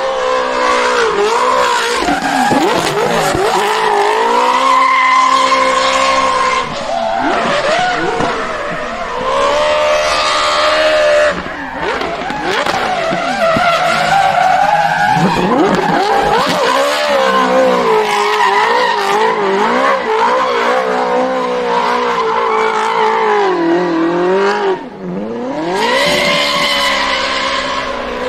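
Ferrari 458 V8 in a Toyota GT86 drift car, revving up and down high in its range as the car slides sideways, with the hiss of spinning, sliding tyres under it. The revs drop off briefly near the end before rising again.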